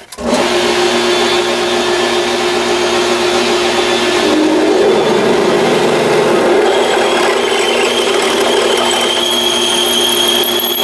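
Grizzly G0602 benchtop metal lathe switching on and running steadily, its gear train giving a steady whine, while a half-inch drill bit in the tailstock chuck bores into the spinning workpiece. A thin high whine joins in during the second half.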